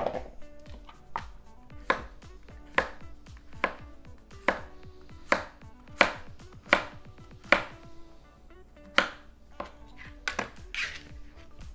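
Kitchen knife slicing a zucchini into rounds on a plastic cutting board: a sharp knock as each cut hits the board, roughly one a second, about a dozen cuts with a short pause near the end.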